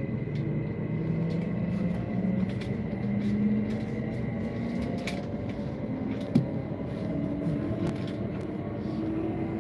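Electric commuter train running, heard from inside the carriage: a steady rumble with a motor hum that rises gently in pitch as it pulls along the platform, a steady high tone and scattered light clicks. A single sharp knock comes about six seconds in.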